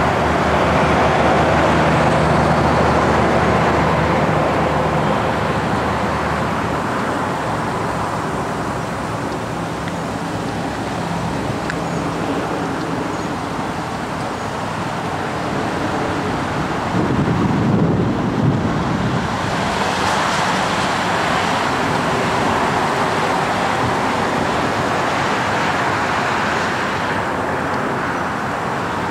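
A 2011 Ford F-250's 6.2-litre V8 idles steadily. A deeper, louder rumble swells for a couple of seconds a little past the middle.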